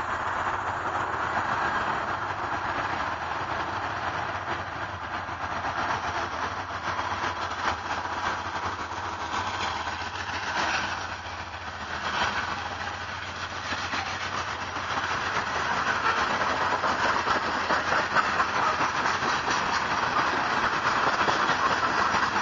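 A diesel freight train of coal hopper cars passing close by. The locomotives' engines run under a steady rolling rumble of wheels on rails, dipping slightly midway and building again toward the end.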